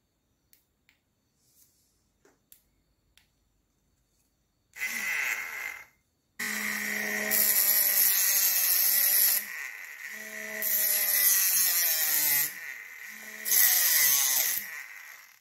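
Homemade rechargeable mini grinder's small DC motor whirs briefly, then runs steadily with a whine. Its small cutting disc is pressed against a thin rod three times, each cut a loud, high rasping hiss over the motor.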